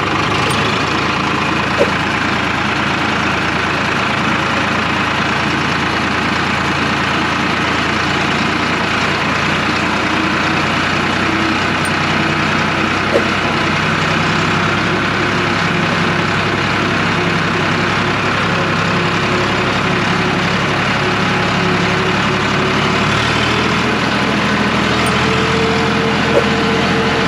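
Diesel engine of an Eicher 555 tractor running steadily, with a few brief knocks along the way.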